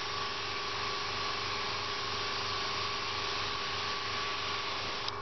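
Airbrush hissing steadily as it sprays paint at about 1 bar (15 psi), over the steady hum of its air compressor; the hiss cuts off near the end as the trigger is let go.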